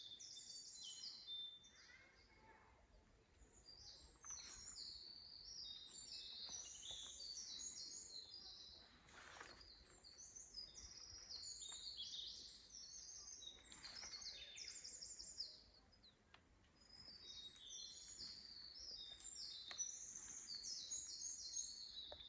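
Faint chorus of small songbirds, many short high chirps and quick trills overlapping without a break, with a few soft knocks.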